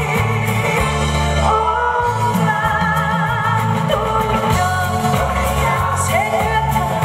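A singer singing a ballad live into a microphone while strumming an acoustic guitar, over an amplified accompaniment with a steady bass line and beat; a long note near the middle is held with vibrato.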